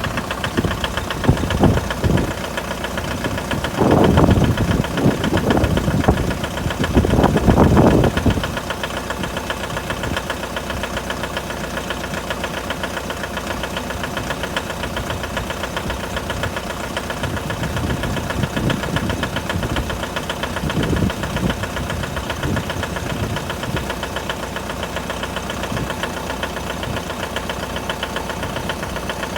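Mitsubishi L200's 4D56 2.5-litre turbodiesel idling with a rapid knocking clatter, the knock the engine makes when cold. Two louder swells come in the first eight seconds, then it settles to a steady idle.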